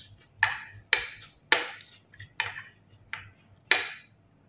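A spoon scraping and clinking against a plate about six times, at roughly half-second to one-second gaps, as rice is scooped up to eat.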